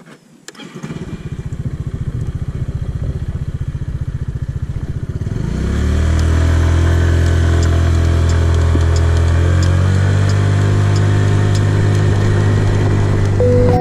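A Kymco Super Z 125 scooter's small single-cylinder four-stroke engine running while riding. Its pitch rises about five seconds in as the scooter speeds up, then holds a steady note at cruising speed.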